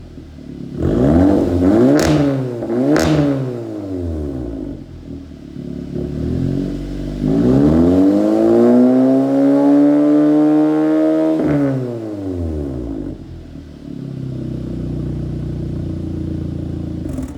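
Audi S3's turbocharged four-cylinder engine heard through a one-off exhaust with a valved rear muffler, being revved. There are two quick blips about two and three seconds in, then a longer rev held for several seconds before dropping back to a steady idle.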